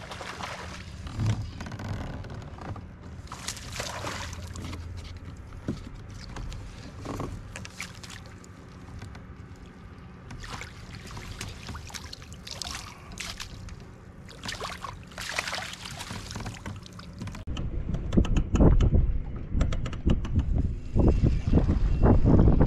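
Short bursts of water splashing as a hooked bass thrashes at the surface beside a kayak and is brought in. About three-quarters of the way through, heavy wind buffets the microphone in loud gusts.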